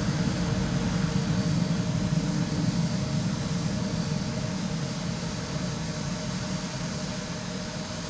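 Long low rumble of rolling thunder, fading slowly away, heard through an office window pane.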